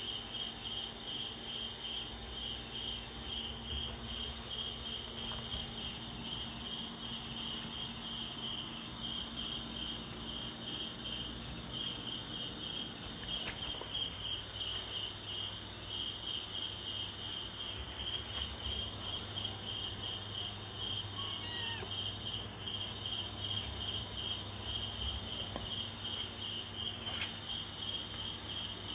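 Cricket chirping steadily: a high-pitched song in rapid pulses that never stops.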